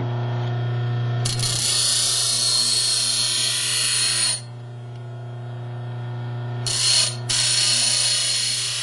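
Bench grinder running with a steady hum while a steel hacksaw blade is pressed against the spinning wheel twice, each pass a harsh grinding hiss lasting a few seconds, the second one briefly broken.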